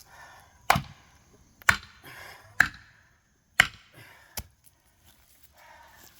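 A felling wedge being hammered into the back cut of a tree: five sharp strikes about a second apart, the last one lighter.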